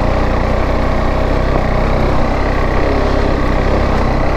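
Motorcycle engine running steadily as the bike is ridden slowly, at about 20 km/h, along a rough dirt trail, heard from the rider's seat.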